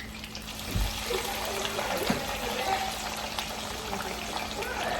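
Fish frying in hot oil, a steady sizzle, with a low thump about a second in and a knock about two seconds in.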